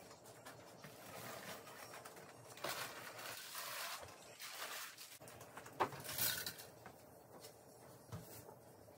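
Household handling noises: rustling and things being picked up and set down on a bed, with one sharp knock a little before six seconds in.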